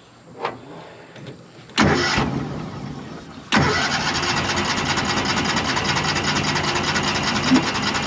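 Cushman Turf Truckster engine being cranked on the starter: a short crank about two seconds in, then a longer steady crank from about three and a half seconds. It keeps turning over without catching, a fuel-starvation problem the owner puts down to a failing mechanical fuel pump.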